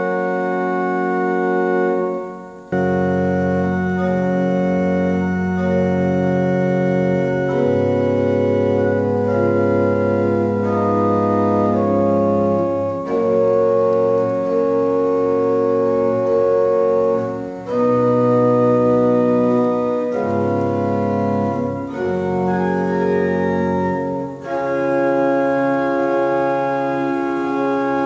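Church pipe organ with horizontal trumpet pipes being played: sustained, full chords that change every second or two, with brief breaks between phrases about 2.5 s in, near 17 s, near 24 s and at the end.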